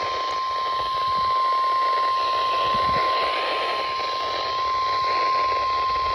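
NOAA Weather Radio warning alarm tone, a single steady 1050 Hz beep, over the hiss and static of radio reception. It is the alert signal that comes before a warning broadcast.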